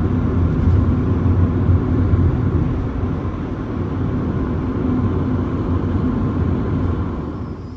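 Car travelling along an open road: a steady, loud low rumble of tyre and wind noise.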